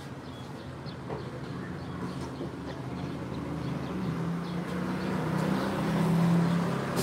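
A motor vehicle engine passing by, its low hum growing louder to a peak about six seconds in and then easing off, with a few faint clicks of small plastic parts being handled.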